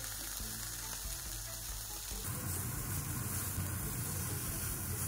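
Slices of lean whale meat sizzling as they sear in a hot nonstick frying pan, a steady frying hiss that grows fuller about two seconds in.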